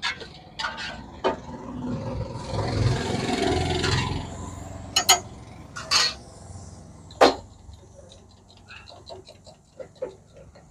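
Steel spoon clinking against a steel bowl, then fat sizzling on a hot flat-top griddle for about two seconds. A few single sharp metal clinks follow, and near the end a spoon clatters quickly inside a small steel pot as egg is beaten, with a faint sizzle underneath.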